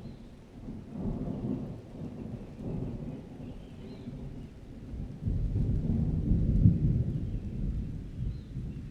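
Summer thunderstorm: thunder rumbling low and rolling, a louder, longer peal starting about five seconds in, over light rain.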